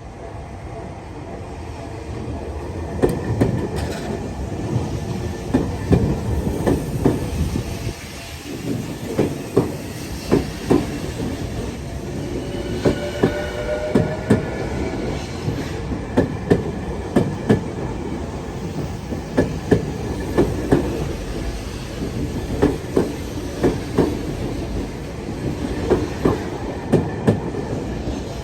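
Tokyu electric train passing, its wheels clacking in a steady run of paired clicks over the track joints, with a brief wheel squeal about midway.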